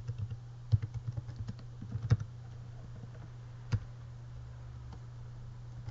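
Computer keyboard keys being typed in two quick runs over the first two seconds, then one more keystroke a little later, over a steady low hum.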